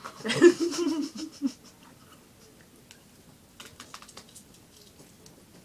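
A short burst of a person's voice in several quick pulses, the loudest sound, in the first second and a half, then a few faint, sharp clicks near the middle.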